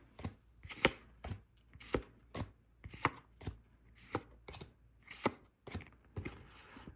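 Pokémon trading cards being flipped through one at a time from a freshly opened booster pack, each card moved to the back of the stack with a sharp tap or snap, about two a second.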